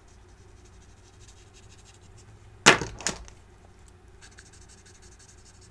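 Two sharp plastic clicks about half a second apart, a little under three seconds in, as alcohol marker caps are handled while markers are swapped. Before them, the marker tip scratches faintly on cardstock.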